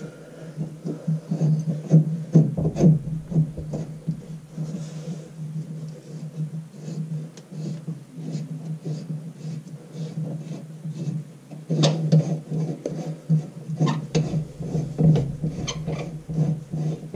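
Hands unscrewing and working a bathroom sink's metal pop-up drain assembly: irregular clicks, scrapes and rubbing of metal and plastic parts, busier about twelve seconds in and again near the end, over a steady low hum.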